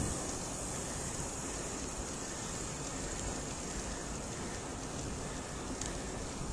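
Steady rush of wind over the microphone and tyre noise on rough asphalt, from a camera mounted on a moving bicycle.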